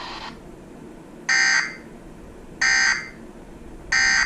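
Three identical short, shrill bursts of EAS (SAME) digital data tones, about 1.3 s apart: the end-of-message code that closes an emergency alert broadcast.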